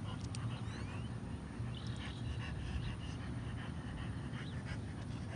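French bulldog panting and snuffling on a walk, over a steady low rumble, with faint high chirps.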